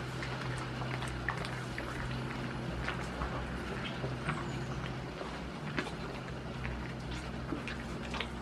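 Goat chewing close up, with scattered soft clicks and rustles in straw, over a steady low hum.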